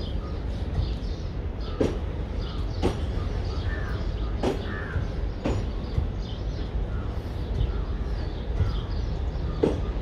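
Crows cawing several times, in short single calls, over a steady low rumble of a railway station with a train standing at the platform.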